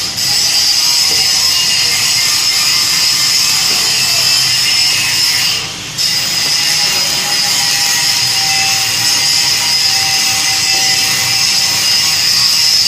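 Power tool working steel, a steady high-pitched grinding noise that eases off briefly about six seconds in, then carries on.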